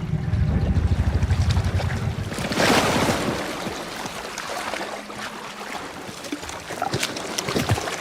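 A low, fast throbbing rumble for about two seconds, then a loud rush of splashing water about two and a half seconds in, settling into fainter lapping and sloshing water.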